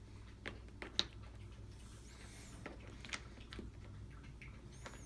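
Light wooden game blocks clicking and tapping against each other and their plastic insert as they are handled, about half a dozen faint sharp clicks with the loudest about a second in. There is a brief soft rustle around two seconds in.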